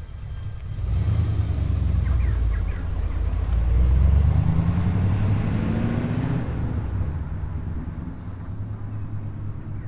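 A car engine accelerating away: it swells about a second in, rises in pitch to its loudest around four seconds in, then fades as the car drives off.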